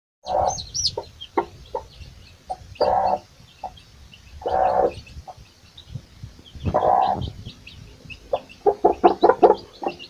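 Domestic hen clucking in short calls every second or two, with a quick run of clucks near the end, while her chicks peep in thin high chirps throughout. It is the sound of a hen and her brood foraging for food.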